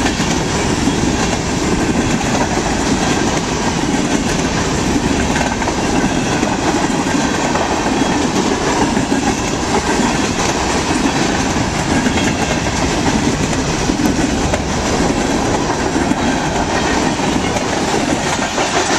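Loaded freight train of covered hopper cars rolling past close by, steel wheels running on the rails in a steady, unbroken noise.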